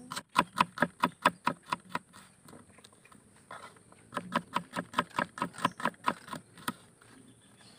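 Small kitchen knife slicing shallots and then garlic cloves on a wooden cutting board: quick knife strokes knocking on the board, about five a second, stopping for about two seconds in the middle before a second run of slicing.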